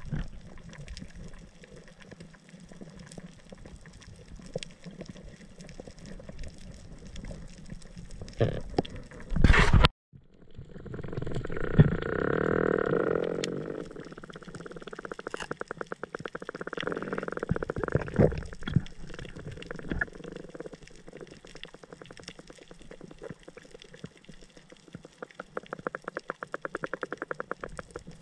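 Underwater ambience picked up by an action camera in its housing on a coral reef: a steady hiss with scattered sharp clicks and crackles, a loud rush of water about nine seconds in and a sudden brief cut-out, and stretches of rapid, even pulsing later on.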